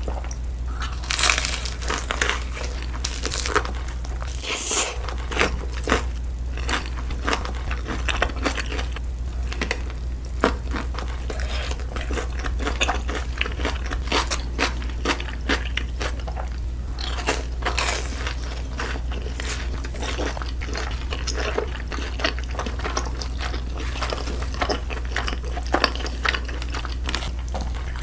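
Close-up crunching and chewing of crispy fried food, irregular bites and crackles with a few louder crunches, over a steady low hum.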